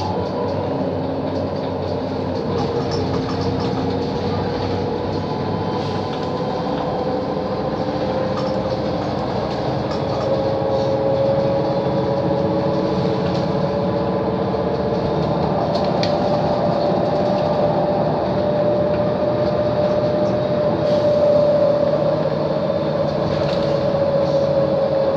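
Interior ride noise of a Mercedes-Benz O 530 Citaro solo city bus under way: a steady engine-and-road rumble with a whine that slowly rises in pitch about ten seconds in, then holds.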